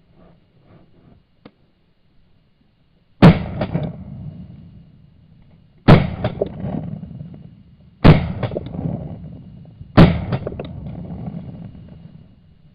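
Four shotgun shots, roughly two seconds apart, each followed by an echo that dies away over a second or two.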